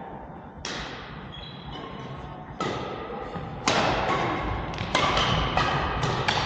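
Badminton rally: rackets striking the shuttlecock, about six sharp hits with a little hall echo. The hits come louder and closer together in the second half.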